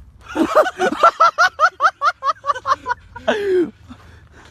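A person laughing hard in a fast run of short bursts, about six a second for two and a half seconds, then one drawn-out cry falling in pitch.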